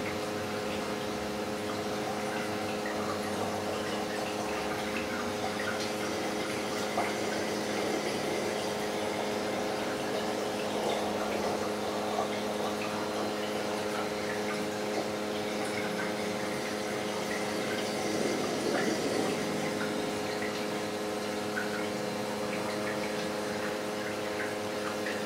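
Reef aquarium's water circulation: a steady rush and trickle of moving water with small splashes, over a constant electrical hum from the tank's pumps.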